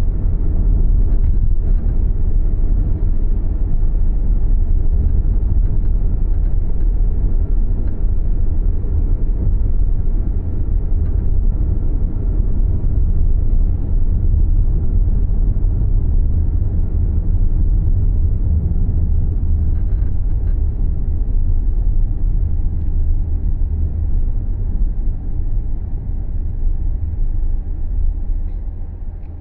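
Subaru Levorg being driven, heard from the cabin as a steady, deep road-and-drivetrain rumble, with a faint steady whine above it. It eases slightly near the end.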